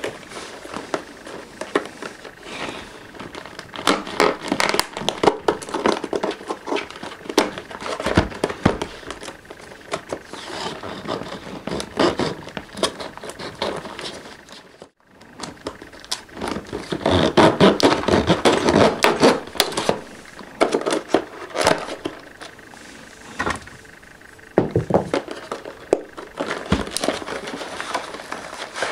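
Stiff clear plastic and cardboard box packaging being handled and opened by hand: dense crackling and scraping of the plastic with scattered taps and knocks, as a sealing strip is pulled off and the box is worked open. The sound cuts out briefly about halfway through.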